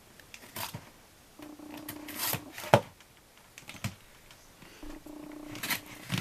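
Sharp clicks and light scraping of a trading-card pack's packaging being worked open by hand and knife, with the loudest pair of clicks a little over two seconds in. A faint low hum comes and goes twice.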